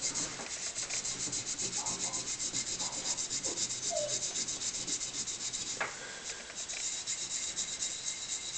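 Hand-scrubbing the metal of an old miner's lamp with an abrasive, in quick, even back-and-forth rubbing strokes. There is a single sharp tap about six seconds in.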